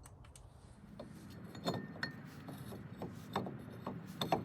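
Irregular metallic clicks, taps and clinks of hand tools and parts being handled on a car's front hub during reassembly, as the ABS wheel-speed sensor is refitted. Some of the clinks ring briefly.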